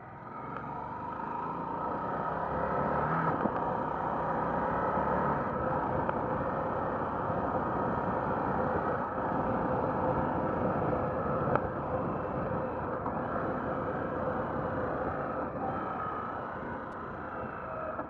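Harley-Davidson Sportster V-twin running as the bike accelerates along the road, mixed with wind rush over the on-board camera's microphone. It grows louder over the first couple of seconds, holds steady, and eases a little near the end as the bike slows.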